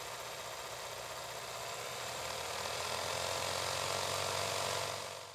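Film projector running: a steady motor hum under a mechanical hiss, swelling slightly, then fading out near the end.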